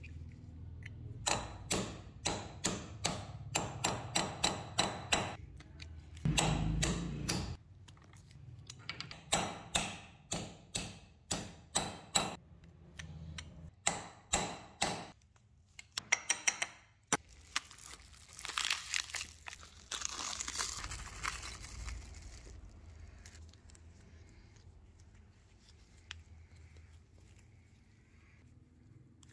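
Hammer tapping steel studs into a motorcycle clutch sprocket hub on a steel vise: runs of sharp metallic taps, about two to three a second, with pauses between runs. A few seconds of rasping noise follow a little over halfway through, then only quieter handling of the parts.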